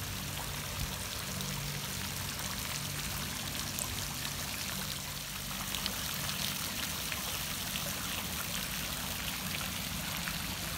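Small fountain jet spraying up and falling back into a shallow pool, a steady splashing of water.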